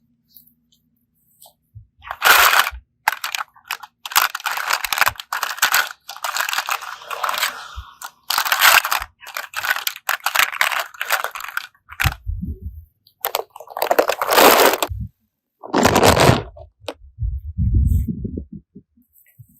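Slime being squeezed and worked by hand, crunching and crackling in repeated bursts of about a second each. A few deep thumps come in the last third.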